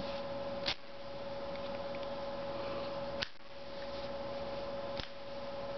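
Three sharp metallic clicks from a Zippo lighter being worked, about a second in, past the middle and near the end, over a steady hum.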